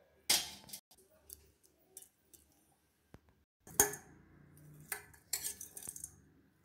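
Stainless steel spoon scraping and clinking against a small stainless steel pot as a roasted leaf-and-coconut mixture is scraped out. Sharp clinks come about a third of a second in and again near four seconds, then a quick run of scrapes and clinks near the end.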